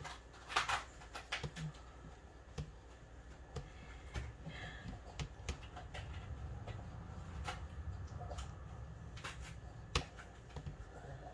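Small plastic toy parts being handled: scattered light clicks and taps as the pieces are fitted together.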